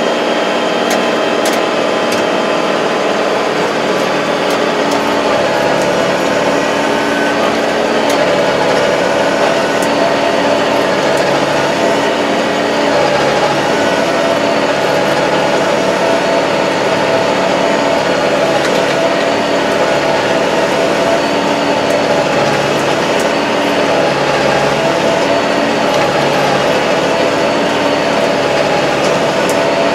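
2021 Kubota MZ755 tractor's diesel engine running steadily, heard from inside the closed cab while the tractor drives through tall grass, with scattered light ticks and crackles over the engine note.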